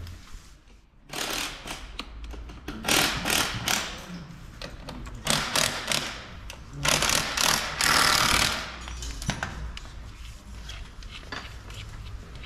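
Bursts of unpacking and assembly noise on a new Yamaha YZ450F dirt bike, each a second or two long: plastic packaging being handled and a cordless drill/driver at work on the bike.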